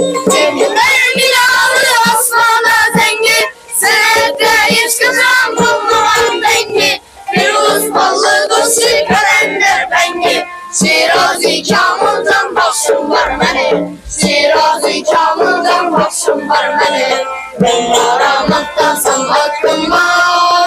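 A group of boys singing a folk song to plucked long-necked lutes (dutars) and a frame drum (doira), the voices pausing briefly between phrases.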